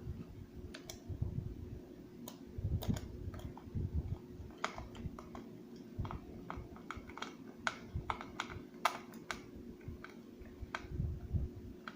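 Phillips screwdriver driving a screw into a plastic gearbox housing, with irregular light clicks and taps as the screw is turned and the plastic parts are handled.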